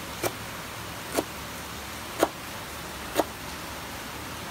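Four short sharp knocks, about one a second, over a steady hiss.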